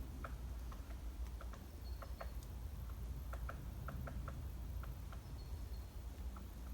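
Small forest birds calling: irregular short chip-like ticks, with a couple of thin high whistled notes, over a steady low rumble.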